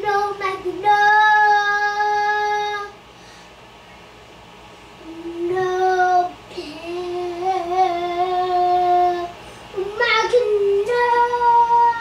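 A toddler singing long, drawn-out notes: one held for about two seconds, a pause, then two lower wavering notes, and a higher note near the end.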